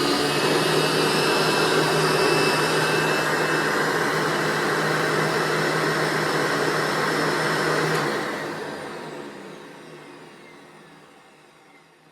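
1993 Hoover Energy Efficient vacuum cleaner running steadily. About eight seconds in it is switched off, and the motor winds down with a falling whine.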